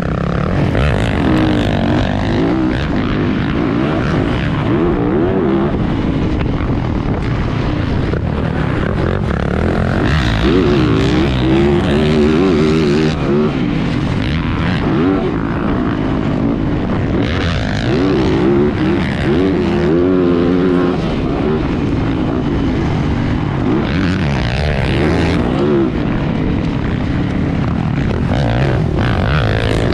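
Motocross dirt bike engine running hard, its pitch rising and falling over and over as it revs through the gears and backs off.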